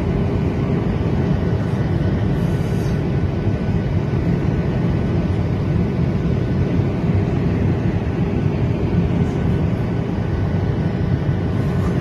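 Jet airliner cabin noise in flight: a steady, loud rush of engine and airflow noise with a faint steady hum running through it.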